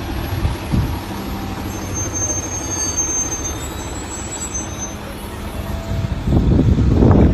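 Heavy truck engine running with a steady low rumble and a faint hum. It grows louder and rougher about six seconds in.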